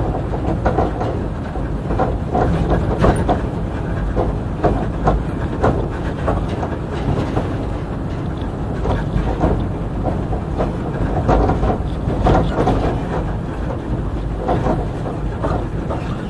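Moscow Monorail train running, heard from inside the car: a steady low rumble with frequent, irregular knocks and rattles.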